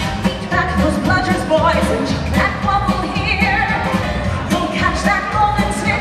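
A woman singing into a microphone over amplified band music with a steady bass beat, her voice holding and sliding between notes.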